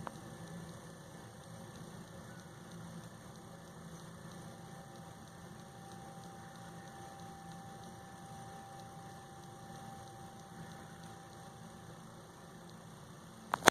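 Steady low electrical hum with hiss, and a faint high steady tone from about four to ten seconds in. A sharp click at the very end.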